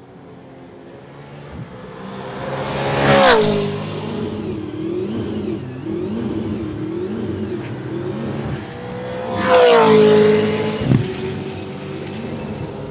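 Two V8 Supercars race cars pass at speed, about 3 seconds in and again near 10 seconds, each engine note dropping sharply in pitch as the car goes by. Between the passes, engine sound from cars further round the track keeps rising and falling with the throttle and gear changes.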